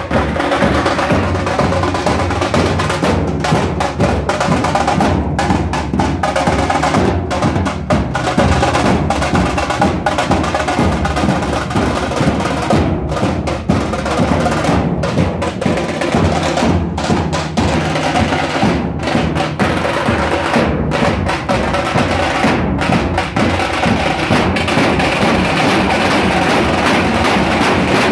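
Maharashtrian dhol-tasha ensemble playing: large barrel dhols beaten with sticks together with tasha drums, in a loud, continuous, fast rhythm.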